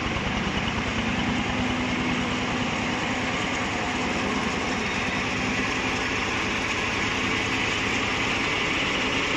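Mini combine harvester running steadily, its engine keeping an even, fast pulsing beat with a steady hum over it.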